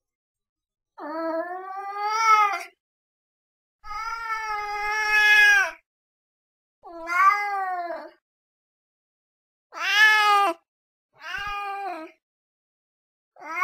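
Domestic cat meowing: six separate drawn-out meows with short pauses between them, the longest lasting about two seconds, the last starting near the end.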